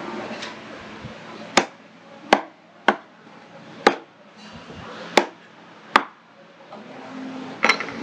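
Kitchen knife chopping a squirrelfish into pieces on a wooden chopping block: about seven sharp, irregularly spaced strikes of the blade against the board, the last a quick double near the end.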